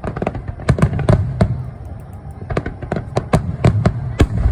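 Aerial fireworks shells bursting in rapid, overlapping volleys: many sharp bangs over a continuous low rumble. The bangs thin out briefly about two seconds in, then come thick and fast again.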